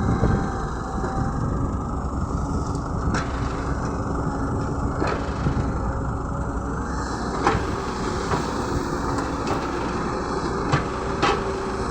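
Diesel engine of a Caterpillar 120B excavator running steadily while it loads a dump truck, with a few sharp clicks or knocks scattered through it.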